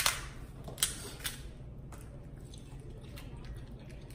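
King crab leg shell cracked and pulled apart by hand: a few sharp snaps in the first second and a half, then quieter crackling as the shell is worked open.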